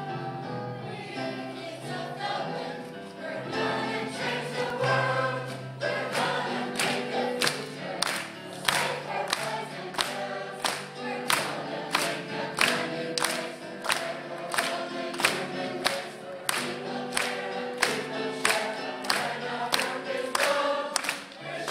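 A mixed choir singing a slow song together. From about six seconds in, a sharp, steady beat joins in, about two strokes a second.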